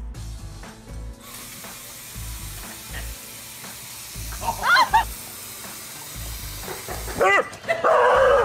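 A large dog giving two short, yowling calls that bend up and down in pitch, about halfway through and again near the end, over a steady hiss and a background music beat. A louder, rougher burst follows right at the end.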